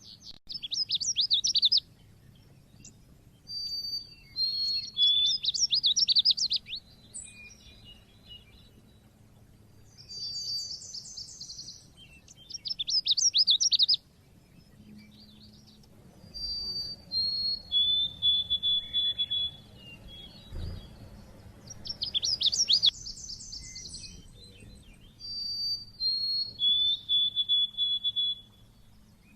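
A white-eye (pleci) singing in repeated phrases. Bursts of rapid, high twittering trills alternate with runs of short, clear whistled notes that step down in pitch, with pauses of a second or two between phrases.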